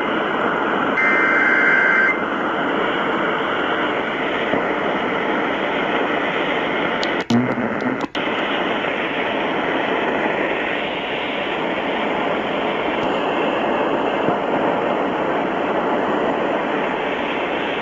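An emergency alert's end-of-message data burst, a two-tone digital warble, about a second in. It gives way to steady radio receiver static hiss, broken by two short dropouts near the middle.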